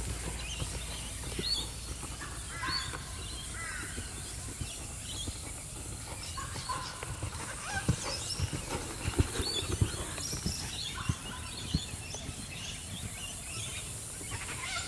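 Birds calling from the surrounding trees, a scatter of short chirps and warbles, over the soft, muffled thuds of a horse's hooves working in arena sand.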